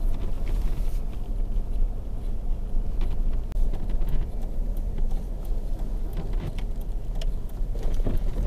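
Car driving, heard from inside the cabin while towing on a drawbar: a steady low rumble of engine and road noise.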